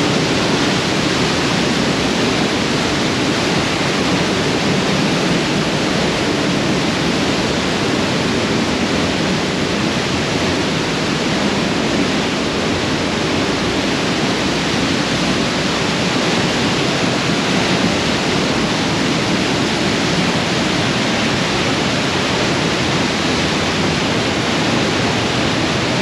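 Waterfall on the river Thur pouring down close by: a loud, steady rush of falling water that never lets up.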